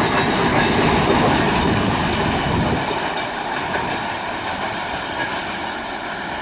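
Freight train cars rolling past, wheels clacking over the rail joints; the low rumble drops away about three seconds in and the sound fades slowly.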